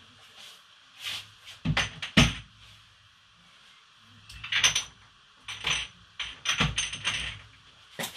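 Knocks and clatters of kitchen items being handled while someone rummages in a cupboard, in an irregular string with the loudest knocks about two seconds in.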